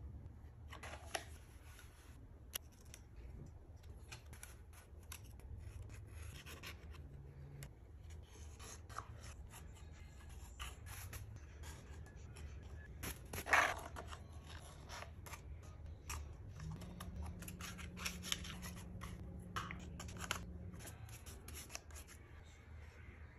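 Small metal pick scraping and prying packed sawdust and grime off a chainsaw's housing: a busy run of short scratching and clicking strokes, the loudest scrape about halfway through.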